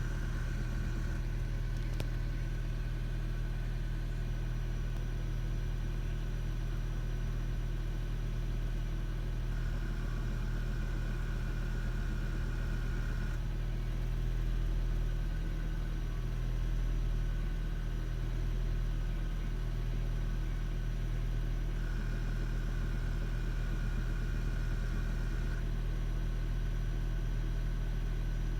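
A 2007 Toyota Prius making a steady low hum. A higher-pitched whine switches on for about four seconds roughly every twelve seconds. This is a noise from the driver's side that the owner cannot account for.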